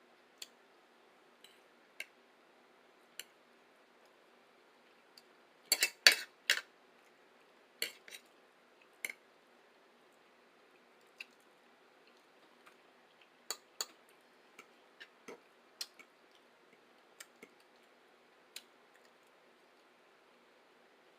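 Eating sounds: scattered sharp clicks and taps of utensils and dishes, with a louder burst of clatter about six seconds in.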